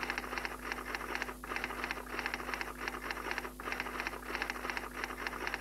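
Typewriter-style typing sound effect: rapid runs of key clicks, broken by two short pauses, over a steady low hum.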